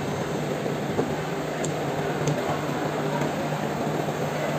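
Steady machine hum and hiss: a constant low hum under an even hiss, with a few faint ticks.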